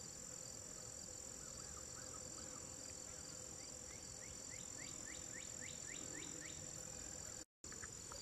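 A steady, high-pitched insect chorus at a pond, of the cricket-and-katydid kind. From about halfway through, a run of short rising chirps comes about four times a second. The sound cuts out completely for a moment near the end.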